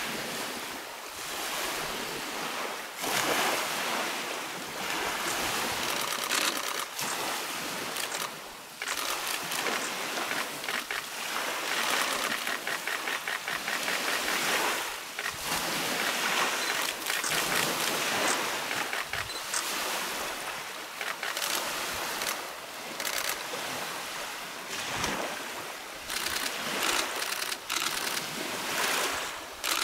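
Steady rush of water: small lake waves and creek current breaking over a shingle shore, rising and falling in loudness.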